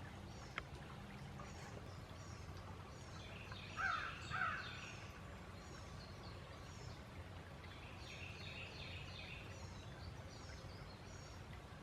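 Outdoor ambience with a steady low hiss, small birds chirping in quick, short, falling notes, and two crow caws close together about four seconds in.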